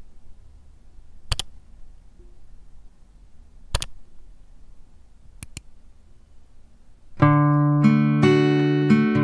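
A few sharp clicks, one alone and then two quick pairs, over faint hiss; about seven seconds in, guitar music starts with sustained notes over a bass line and becomes the loudest sound.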